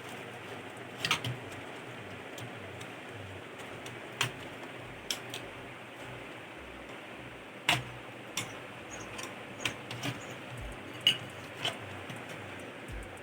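Scattered sharp clicks and light knocks of hands and tools working on an AV receiver's metal chassis and plastic front panel as connectors are unplugged and the panel is taken off, irregular, over a steady low hiss.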